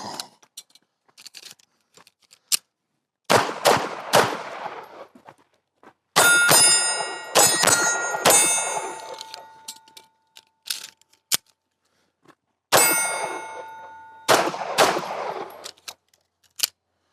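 Pistol shots fired in pairs and short strings, separated by quiet gaps of a second or more. Several strings, about six and eight seconds in and again near twelve seconds, are followed by the clear, lingering ring of hit steel targets.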